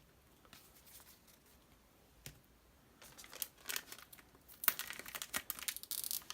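Trading-card booster pack wrapper being crinkled and torn open. There are faint rustles at first, then from about three seconds in the crinkling grows denser and louder, with a tearing hiss near the end.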